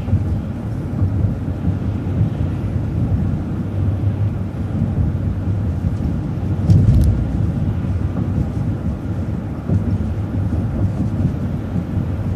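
Low, steady rumble of a transit bus's engine and road noise heard inside the cabin, with a knock or jolt about seven seconds in.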